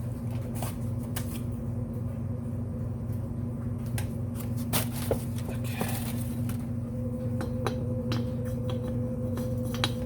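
Light clicks and a brief scrape as a piston is handled and slid into a freshly Nikasil-coated motorcycle cylinder for a trial fit, over a steady low hum.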